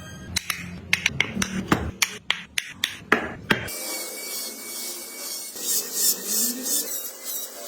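Hand woodworking on a wooden toy: about a dozen sharp taps on wood in quick succession, then, after a break, irregular rasping strokes on wood.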